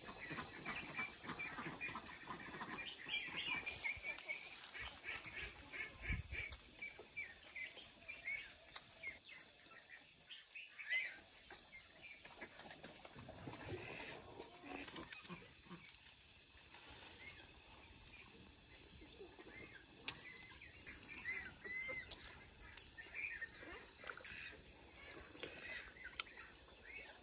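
Insects droning steadily and high-pitched, with birds chirping in short calls, thickly in the first several seconds and again around twenty-two seconds in.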